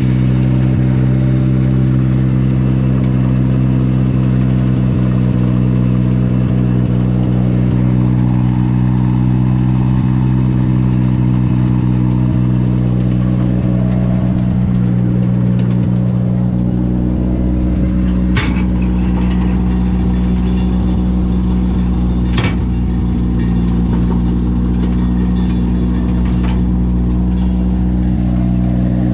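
Morbark wood chipper's flat-four engine running steadily off choke just after starting. A few sharp clicks sound over it in the second half.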